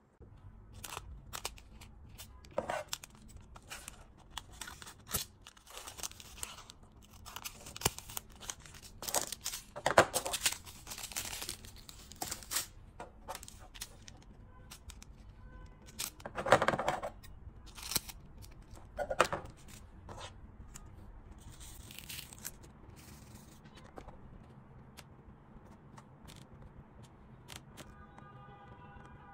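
Small plastic bag of resin diamond-painting drills being handled and opened, with irregular crinkling, tearing and rustling, and the loose drills tipped out into a plastic tray. The handling noise grows quieter in the last third.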